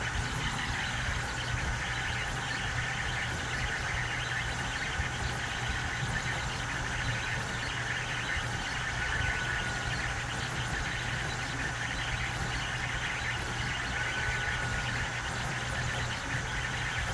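Cross-gantry 3D printer printing. Its stepper motors, driven at 16 microsteps rather than 32, give the louder "old school" motor sound: a steady mechanical whir with short pitched tones now and then as the axes move.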